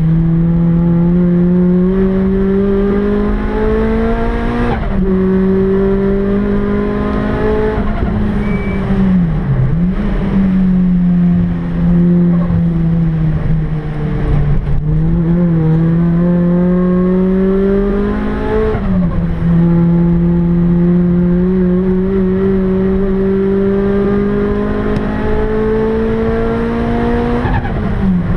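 Rotrex C30-supercharged Toyota 2ZZ-GE four-cylinder engine at full throttle on track, heard from inside the cabin. It climbs steadily in pitch through the gears, with sharp drops at upshifts about five seconds in, about nineteen seconds in and near the end. Between them the revs fall and pick up again as the car slows for corners and accelerates out.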